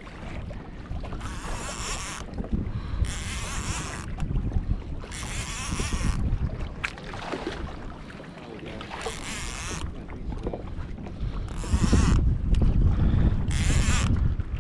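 Wind buffeting the microphone on a fishing kayak, with short hissing bursts every second or two. The low rumble grows louder about twelve seconds in.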